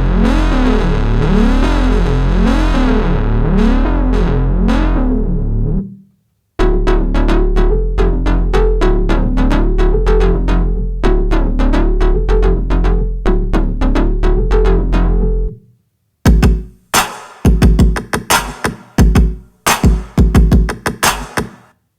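Electronic music: a synthesizer riff over a steady bass, stopping briefly about six seconds in and returning, then breaking off into choppy drum-machine hits with gaps between them near the end.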